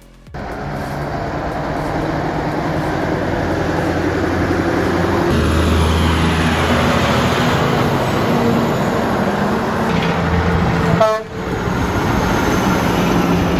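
A logging truck on the move, its diesel engine running loud and steady with droning tones under a broad roar of engine and road noise. The sound dips briefly about eleven seconds in, then carries on.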